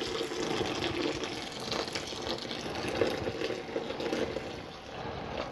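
Sparge water poured steadily from a saucepan into a grain bag in a plastic bucket, splashing as it fills: the final sparge, rinsing the last sugars from the mashed grain.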